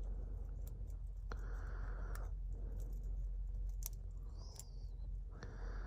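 Small scattered clicks and scrapes of a lock pick working inside an ILCO padlock, with short patches of soft rubbing, over a low steady hum.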